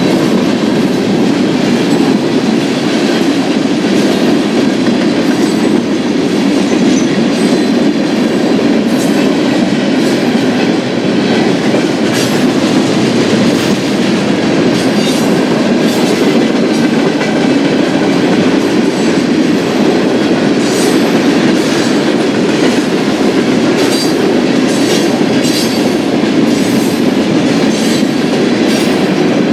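Freight train cars rolling past at close range: a steady rumble of steel wheels on rail with scattered clicks from the wheels crossing rail joints.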